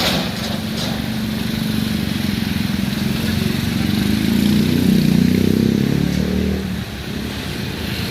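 A motor vehicle's engine drives past. It grows louder to a peak about five seconds in, then drops away abruptly just before seven seconds.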